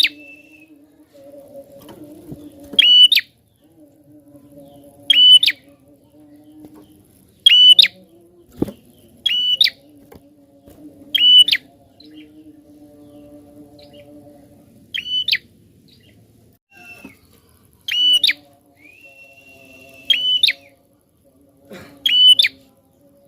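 Prinia (prenjak) calling insistently: loud, sharp, clipped notes repeated about every two seconds, with a couple of longer whistled notes among them.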